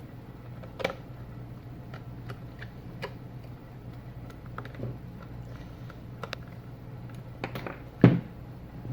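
Scattered light clicks and knocks of a small plastic wireless remote being handled and pressed together on a workbench, with one louder knock about eight seconds in, over a steady low hum.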